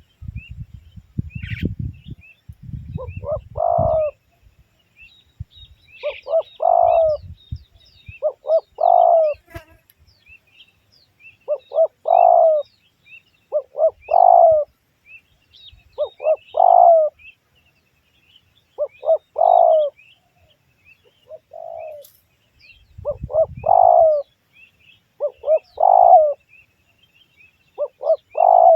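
Spotted dove cooing, its phrase repeated about every two seconds, with small birds chirping faintly and high in the background. Some low rustling noise sounds in the first few seconds.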